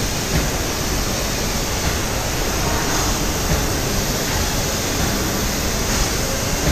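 Steady rushing hiss in a fibreglass boat factory's spray booth as gelcoat is sprayed into a bass boat hull mold: the spray gun's hiss blended with the booth's ventilation.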